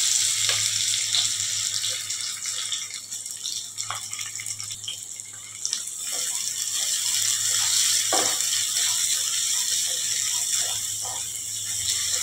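Sliced onions sizzling and crackling in hot ghee and oil in a kadhai as they start to fry, easing off for a few seconds midway and then picking up again.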